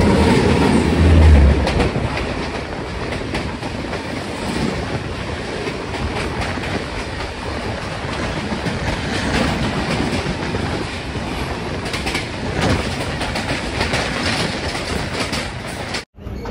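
Two trains passing each other, heard from the open door of a moving coach: a loud low rumble as the other train's locomotive goes by about a second in, then a steady rush of its coaches with wheels clattering over rail joints.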